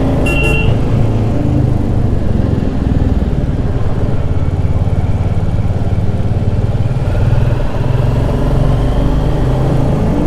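Single-cylinder motorcycle engine running steadily at cruising speed, heard from a camera mounted on the bike while it is ridden.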